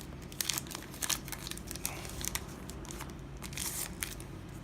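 Foil booster pack wrapper of Yu-Gi-Oh! cards being crinkled and pulled at to tear it open, a run of irregular crackles and short rips over a low steady hum. The pack is hard to open.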